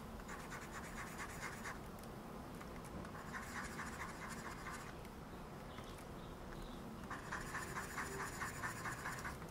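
Stylus scratching across a graphics tablet in quick back-and-forth sculpting strokes, three short runs of them: near the start, in the middle and near the end. The scratching is faint.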